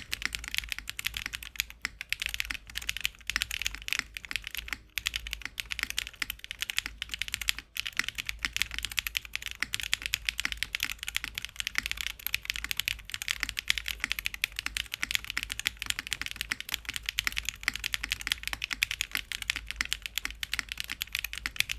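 Mechanical keyboard fitted with factory-lubed MZ Y1 switches in a Tofu 60 2.0 board, typed on fast and without pause: a dense, continuous stream of keystroke clacks.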